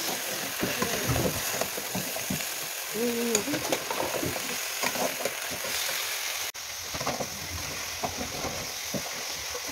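Chicken feet sizzling as they fry in oil and garlic in a metal pan, a steady hiss, with the scrape and clack of a spatula stirring them.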